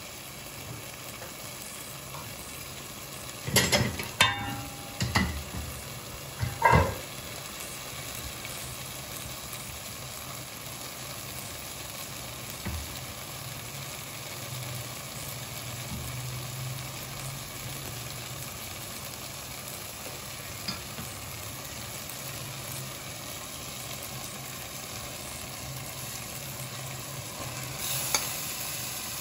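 Chicken, capsicum and pea masala sizzling steadily in a pan, with a few sharp knocks from about three and a half to seven seconds in and a brief louder rustle near the end.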